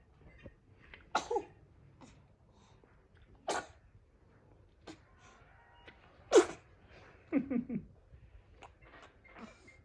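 A four-week-old newborn baby sneezing three times: about a second in, again at about three and a half seconds, and loudest just past six seconds. A quick string of short baby sounds follows at about seven and a half seconds.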